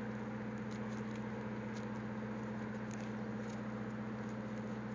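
A steady low machine hum, with faint scattered ticks and rustles as the strands of a three-strand rope are worked over and under by hand.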